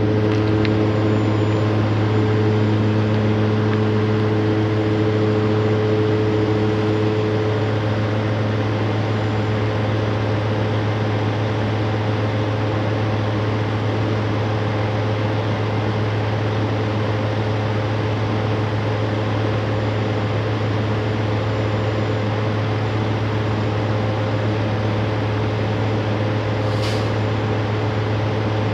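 Steady low drone of an idling vehicle engine, heard from inside a cab. A few higher hum tones fade out about a quarter of the way in, and a brief high chirp comes near the end.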